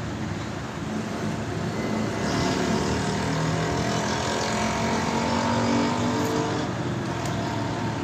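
Steady engine noise, a low drone with a faint pitched hum, growing slightly louder about two seconds in and easing off near the end.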